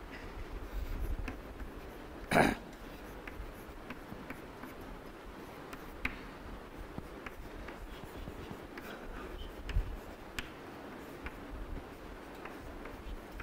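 Chalk writing on a blackboard: faint irregular taps and scrapes of the chalk as equations are written. A short louder noise comes about two seconds in.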